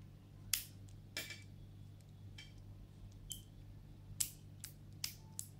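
Scattered sharp clicks and light knocks, about seven in all at uneven intervals, from a ratcheting screwdriver handle's plastic and metal parts as it is turned over in the hands. A faint steady low hum lies under them.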